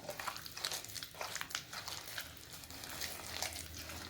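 Soft, irregular clicks and light scrapes of kitchen utensils and a mixing bowl being handled while working a cookie mixture of butter, sugar and egg.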